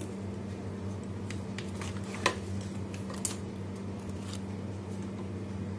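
Wooden spoon serving crab curry onto a ceramic plate: a few soft clicks and knocks, the loudest about two seconds in, over a steady low hum.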